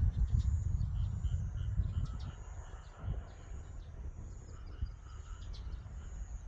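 Rural outdoor ambience: wind buffeting the microphone with a low rumble that eases after about two seconds, over insects trilling in steady high-pitched pulses and small birds chirping.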